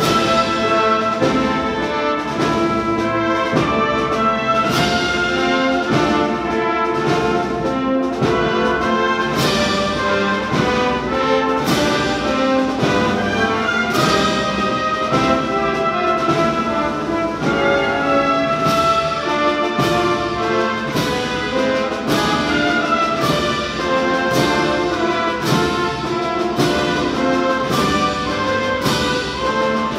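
Spanish wind band (banda de música) playing a Holy Week-style processional march. Full brass (trumpets, trombones, horns) and woodwinds sustain chords over a steady, even beat.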